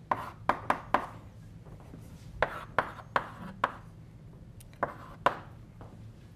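Chalk tapping and scraping on a blackboard as a formula is written: about ten sharp taps and short scratches in uneven clusters.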